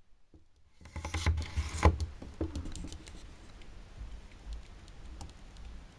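Handling noise and light plastic clicks from an XHDATA D-808 portable radio being handled and tried: a cluster of rustles and knocks about a second in, then scattered faint clicks. The radio itself stays silent, as it will not switch on.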